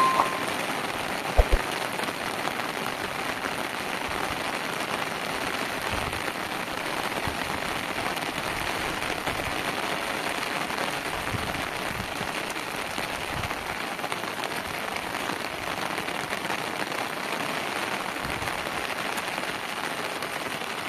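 Heavy rain falling steadily, with one brief thump about a second and a half in.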